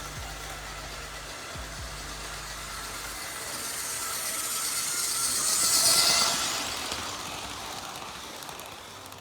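Life-Like GP38 model locomotive running on the layout track, its motor and wheels growing louder to a peak about six seconds in and then fading as it passes close by and moves away.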